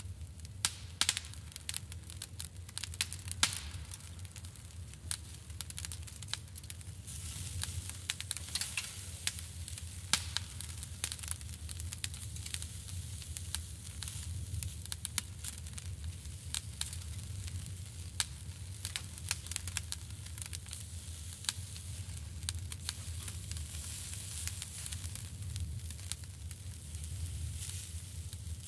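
Coiled sausage sizzling on a grill grate over hot charcoal, a steady hiss broken by frequent sharp pops and crackles, with a low hum underneath.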